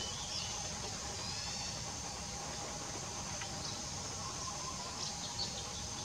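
Small birds giving short, high chirps every second or so, over a steady high hiss and a low background rumble.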